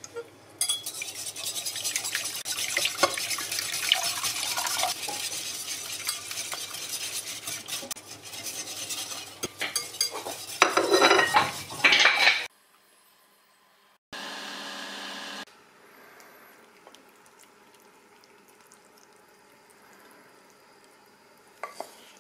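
Wire whisk beating eggs and milk in a glass bowl: fast, continuous scraping clicks of the wires against the bowl for about twelve seconds, stopping abruptly. Then a short steady hum lasting about a second and a half, followed by faint room tone.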